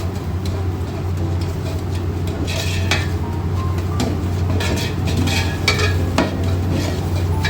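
A ladle stirring and scraping a sizzling onion, tomato and spice masala in a cooking pot, with several louder scrapes from about two and a half seconds in. A steady low hum runs underneath.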